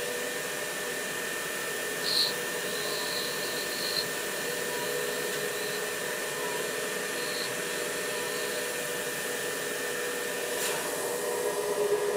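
CNC milling machine spindle running with a thread-milling cutter circling inside a hole in a brass bar, cutting a 20-threads-per-inch thread. It makes a steady whir with a constant hum, growing a little louder near the end.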